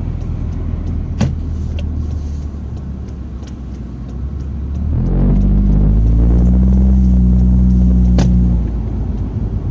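Open-top car driving, with engine and road noise. The engine note gets louder about halfway through, then drops back after about eight seconds. A sharp click about a second in and another near eight seconds.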